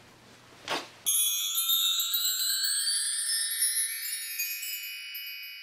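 A short outro jingle of bright, ringing chime-like tones that starts about a second in and slowly fades. Just before it there is a brief soft noise.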